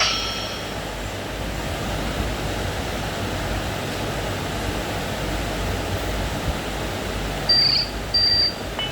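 Phone-speaker ringtone gap: the last electronic notes of a ringtone fade out within the first half second, then a steady hiss with a low hum, then two short, loud, high electronic beeps near the end.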